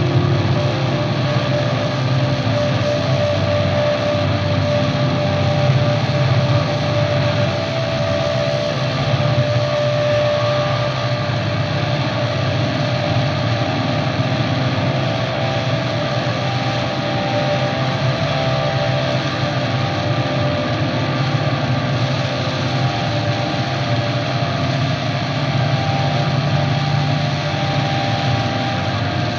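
Electric guitar played through effects and amplifiers as a slow drone improvisation: a dense, unbroken wall of noisy sound with a heavy low hum and a few held tones that drift slightly in pitch.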